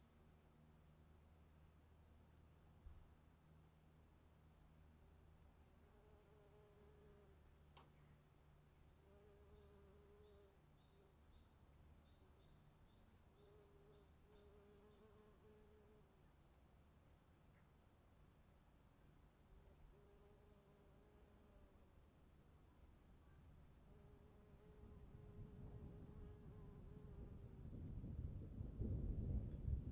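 Crickets trilling steadily in a high, pulsing chirr, with a faint lower call now and then. Over the last few seconds a low rumble of storm thunder builds and grows loud.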